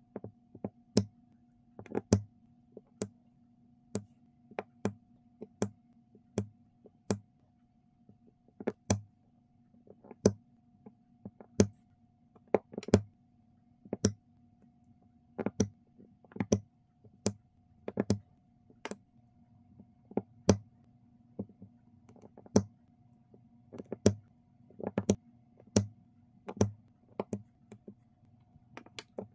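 Diamond-painting drill pen and small round resin drills clicking and tapping as the drills are picked up and pressed onto the canvas. The clicks are sharp and irregular, about one or two a second, over a faint steady hum.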